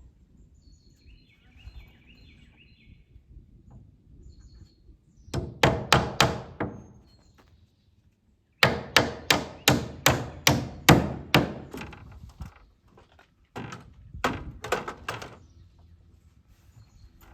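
Hammer driving nails into wooden board-and-batten barn siding: a short run of about four blows, then a steady run of about a dozen at roughly three a second, then about four more. A bird chirps faintly about a second in.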